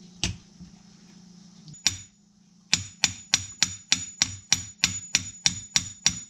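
Hammer taps driving the wrist pin out of a Briggs and Stratton 23A piston, metal on metal with a short ringing tone on each hit. Two single strikes, then from a little under three seconds in a steady run of taps about three a second.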